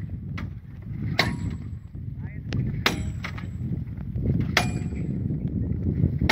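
Hammer blows on steel at the base of the crack in a huge split boulder, working the crack open. Each blow is a sharp clang with a brief metallic ring, coming about every second and a half, over a steady low rumble.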